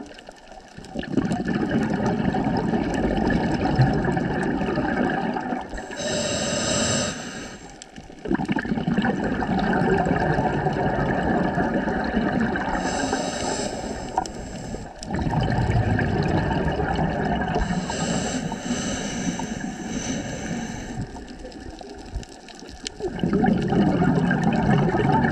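Scuba diver's regulator breathing underwater: long exhalations of bubbles rumbling and gurgling, broken by short pauses for breath about every seven seconds.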